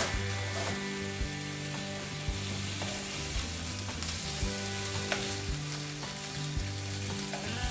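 Bacon frying in a pan, a steady sizzle.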